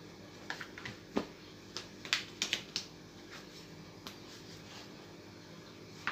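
Short, irregular clicks and light smacks in small clusters, the busiest run about two seconds in: hands handling and shaping soft, sticky yeast dough.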